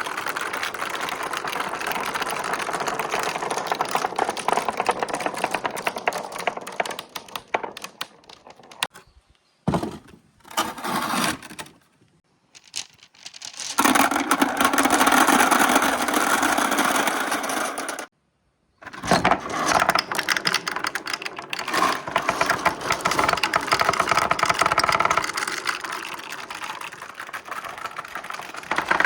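Many glass marbles rolling and clattering along plastic marble-run tracks in a dense, continuous rattle of clicks. It thins out to scattered clicks about eight to thirteen seconds in, cuts off completely for about a second near the middle, then resumes at full density.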